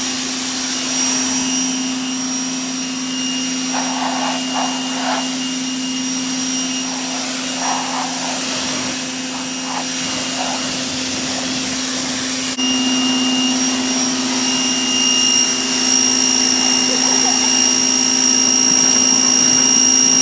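Electric pressure washer running steadily, its motor and pump giving a constant hum with a high whine over the hiss of the water jet; the sound steps up a little louder about two-thirds of the way through.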